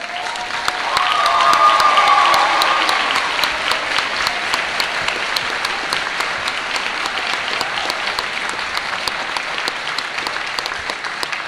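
Audience applauding, with a few voices cheering in the first seconds. The applause swells to its loudest about two seconds in, then carries on steadily.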